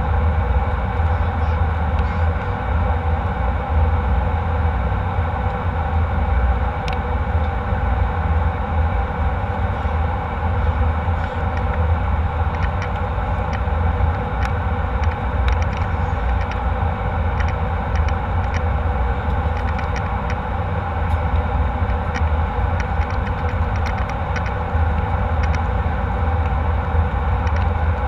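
Steady cabin noise of a jet airliner in flight: an even engine and airflow rumble, strongest in the low end, with faint light ticks here and there.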